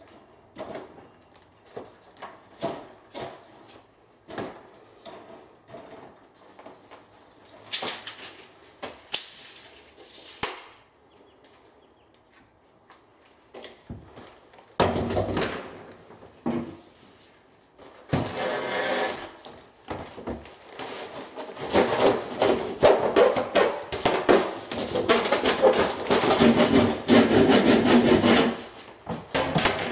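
A plastic-wrapped roll of mineral-wool loft insulation being handled and measured: scattered clicks and knocks, then the wrapping crinkling and rubbing, dense and continuous for most of the last eight seconds.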